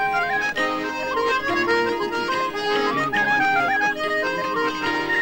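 Traditional Irish music: a quick tune played on melody instruments, with many short notes and no singing.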